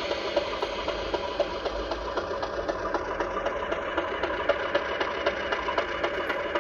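Class 50 diesel engine sound, the English Electric 16-cylinder diesel, played by a DCC sound decoder through an O gauge model locomotive's small speaker. It runs steadily, with a fast ticking running through it.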